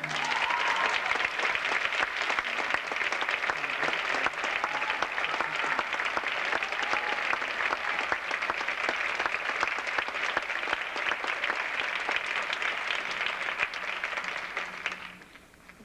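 Theatre audience applauding, a dense steady clapping that dies away sharply about fifteen seconds in.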